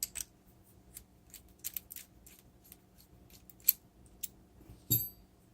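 Small metal clicks and scrapes of a hex key backing a 6 mm Allen bolt out of the threaded hole in the crankset's eccentric. Near the end comes a single sharper metallic clink with a brief ring.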